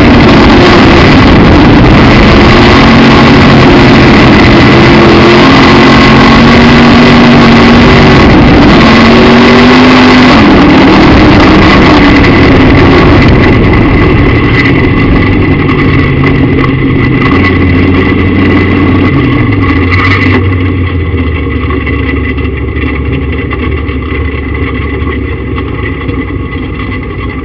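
Midwest Modified dirt-track race car's V8 engine heard from inside the car, loud and overdriven on the in-car microphone. It revs at racing speed for about the first half, then the revs drop and the engine settles to a low, quieter running as the car slows.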